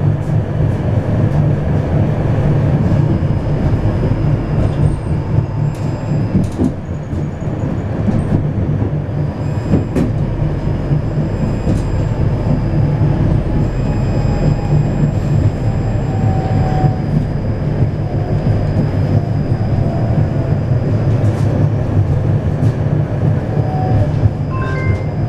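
Interior noise of a Vityaz low-floor tram running along the track: a steady, loud low rumble of wheels on rails, with a few sharp clicks from the track.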